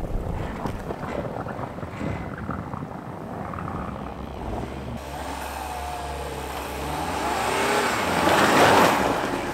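Crossover engines revving under load as first a Subaru Forester's 2.5-litre flat-four and then a Volkswagen Tiguan climb a snowy bank, tyres churning through snow. The engine note rises from about halfway and is loudest near the end.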